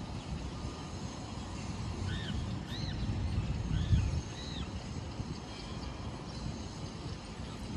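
Wind rumbling on the microphone, with a bird giving four short rising-and-falling chirps about two to four and a half seconds in.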